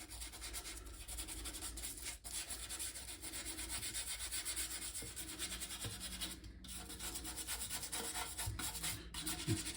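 Rapid back-and-forth scrubbing of a plastic computer case with cream cleanser, working into the nooks and crannies. The scrubbing stops briefly about two seconds in, again around six and a half seconds, and again near nine seconds.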